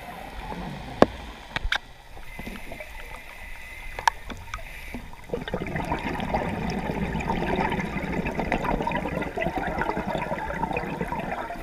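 Underwater ambience with a few sharp clicks in the first half. About five seconds in, a dense gurgling and crackling of a scuba diver's exhaled bubbles starts, louder, and keeps on.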